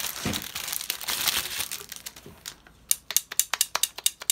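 Clear plastic packaging crinkling and rustling as it is handled, followed about three seconds in by a quick run of sharp clicks, several a second.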